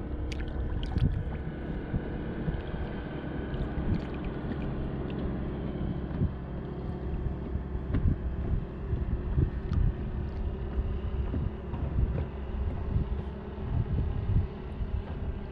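Wind buffeting the microphone in uneven gusts over a steady low rumble, with water lapping against the side of an inflatable boat.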